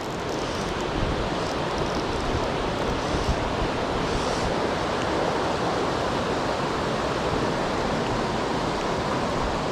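Mountain stream water rushing: a steady, even noise.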